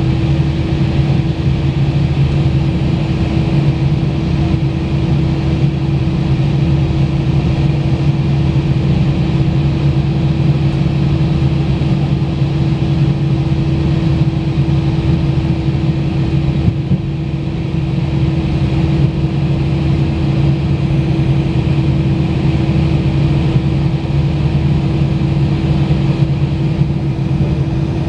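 Cabin noise of an Airbus A319 taxiing with its jet engines at idle, heard from a window seat over the wing: a steady drone with a low hum, dipping slightly for a moment about 17 seconds in.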